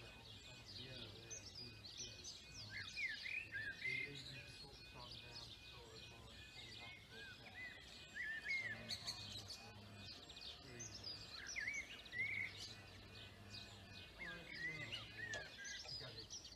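Birds chirping and singing, with a level crossing's warning alarm sounding faintly underneath as a steady, evenly pulsing tone while the barriers lower.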